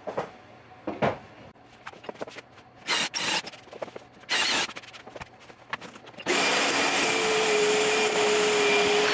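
Knocks and clatter of tools and a vacuum hose being handled on a wooden board, then about six seconds in a wet-and-dry shop vacuum switches on suddenly and runs steadily, with a steady motor whine joining about a second later.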